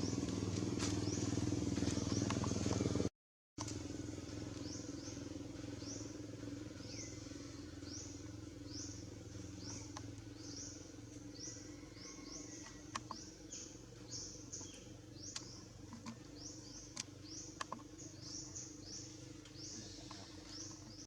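A motor vehicle engine running steadily, cut off abruptly about three seconds in. After that comes a quieter low hum of traffic with a long run of short, high, falling chirps, about one or two a second, and a few sharp clicks.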